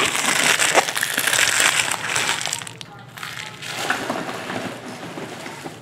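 Clear plastic wrapper crumpled close to the microphone: a loud crinkling that starts suddenly, eases off near the halfway point and comes back in a second bout.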